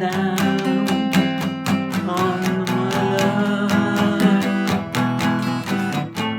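Music: an acoustic guitar strummed in a steady, quick rhythm, about four to five strokes a second, with sustained chords.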